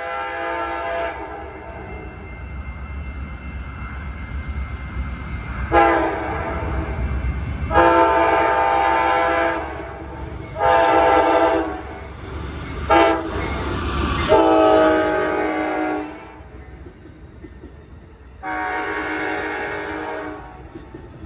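Amtrak passenger train's diesel locomotive air horn sounding a series of long and short blasts as it approaches a grade crossing, over the low rumble of the train rolling past. The rumble eases about sixteen seconds in, and one more long blast follows near the end.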